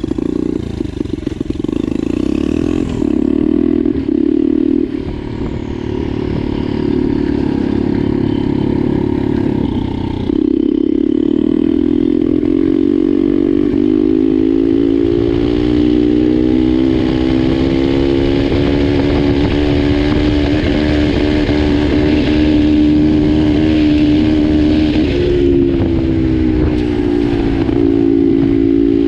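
Turbocharged single-cylinder pit bike engine running under load while the bike is ridden over a gravel track, with low wind and road rumble. The engine note changes at about ten seconds, then climbs steadily from about fourteen seconds, bending up and down with the throttle.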